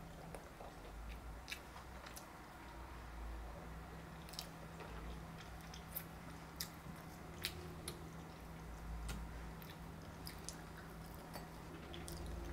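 Faint close-up chewing of rice and Spam, with scattered light clicks of chopsticks against the bowls and plates.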